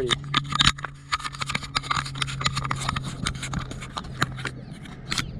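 Footsteps crunching and shuffling on loose gravel, a quick irregular run of sharp crunches, with a steady low hum behind them that fades out near the end.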